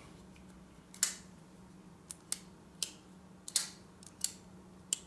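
Kizer Begleiter XL plunge-lock folding knife being worked in the hand, freshly fitted with caged ceramic pivot bearings. Its blade and lock give about nine sharp, small clicks at irregular intervals.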